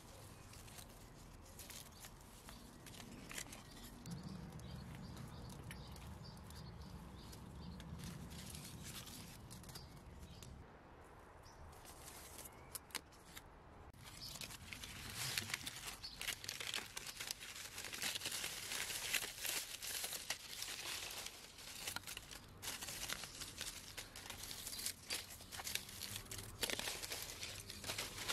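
Dry bamboo-shoot sheaths and fallen bamboo leaves rustling and crackling as they are handled. The crackling grows denser and louder about halfway through.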